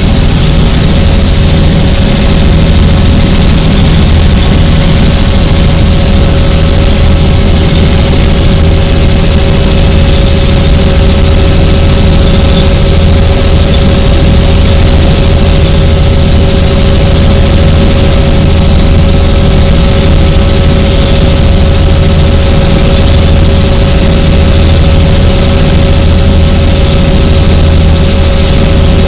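Helicopter in flight, heard from inside the cabin: a loud, steady drone of the rotor and turbine engine, with a constant high whine over it.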